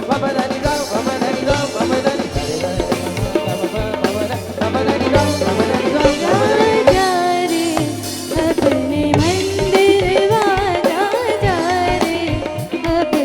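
Bhajan band music: drums and tabla keep a steady beat under a melodic lead line. From about six seconds in, the lead line slides and bends in pitch.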